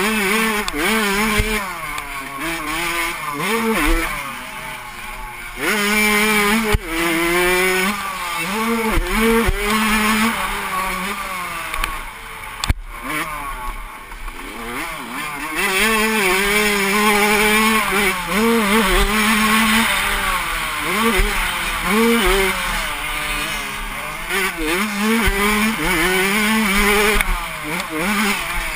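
Suzuki RM85 85cc two-stroke motocross engine revving hard and falling off again and again as the bike works through corners and straights, with wind rushing over a helmet-mounted camera. A single sharp knock comes near the middle.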